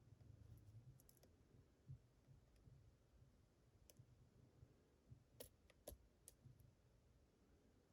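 Faint clicks of lock picking tools working the pins inside a Medeco challenge lock, a handful of separate light ticks with a quick cluster a little past the middle.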